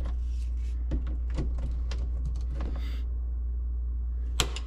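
Scattered light clicks and taps as hands work at an electrical outlet and plug tester, the sharpest click near the end, over a steady low hum.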